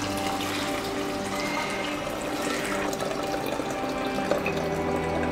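Hibiscus tea pouring through a woven strainer into a tall glass jar, a steady stream of liquid splashing and trickling as the jar fills.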